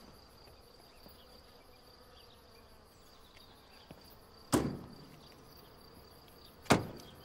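Two sharp thumps about two seconds apart as a car door is shut, over a faint steady high chirring like crickets.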